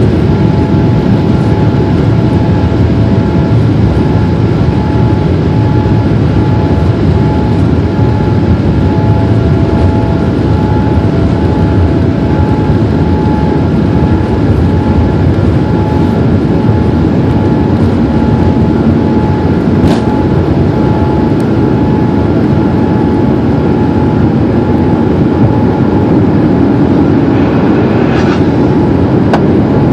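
Boeing 787 jet engines at takeoff thrust heard from inside the cabin, a loud steady roar mixed with the rumble of the wheels rolling down the runway. A single sharp click comes about two-thirds of the way through.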